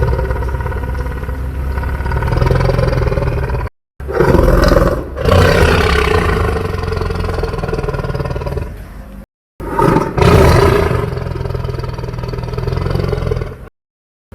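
Homemade dinosaur roar sound effects: three long, rasping roars with a deep rumble underneath, each cut off abruptly into a moment of silence before the next begins. The second and third swell loudest just after they start.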